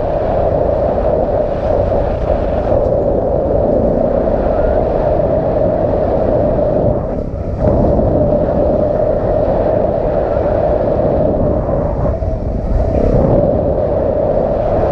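Yamaha dirt bike engine running under throttle on a trail ride, with a brief let-off of the throttle about seven seconds in before it picks straight back up.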